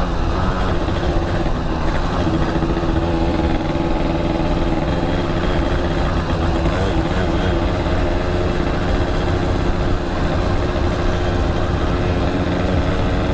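Yamaha RX-King's 135 cc two-stroke single-cylinder engine running at a fairly steady speed while riding.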